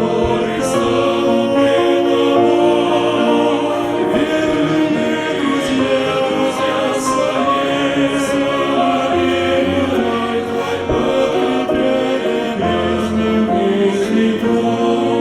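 Choir singing a Christian song in held chords, with music.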